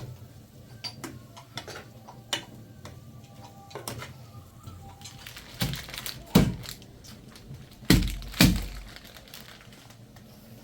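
Kitchen clatter: light knocks and clicks of dishes and utensils being handled, with four heavy thuds, two a little after halfway and two more near the end.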